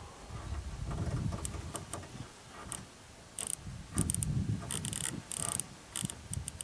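Riflescope elevation turret being turned down, clicking in several short runs, with low handling bumps in between.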